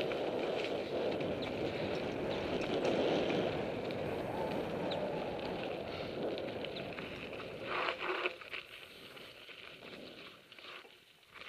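Mountain bike riding over a dirt and gravel trail: a steady rush of tyre and wind noise with light rattling ticks, a brief louder scrape about eight seconds in, then quieter as the bike slows.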